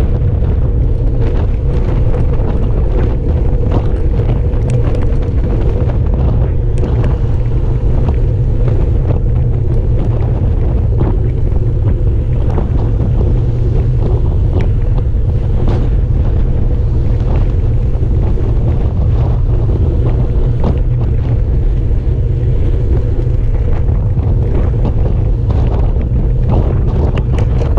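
Wind rushing over the microphone of a handlebar-mounted camera on a moving road bike, a loud, steady low rumble with frequent small clicks and rattles.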